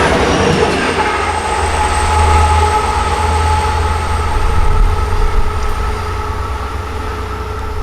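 Long Island Rail Road diesel train, DM30AC locomotives with C3 bilevel coaches, rolling past as it pulls out of the station. Wheels on rail make a steady deep rumble, with a few thin steady whines above it.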